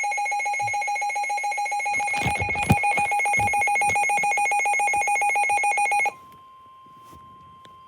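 Weather radio sounding its alert alarm for a flash flood warning: a loud, rapidly pulsing electronic tone with a warble, with a few knocks about two to three seconds in. About six seconds in the alarm cuts off, leaving a quieter steady single-pitched tone, the NOAA Weather Radio warning alarm tone that comes before the warning message.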